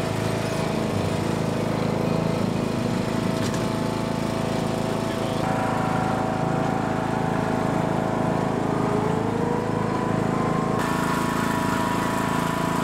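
Engine of a John Deere E100 riding lawn tractor running steadily as it tows a loaded utility cart.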